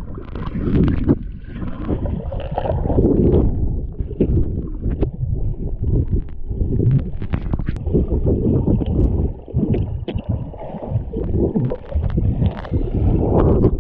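Water swirling and gurgling as a person swims, heard through a camera held underwater: a dense, muffled churning with scattered sharp clicks and knocks.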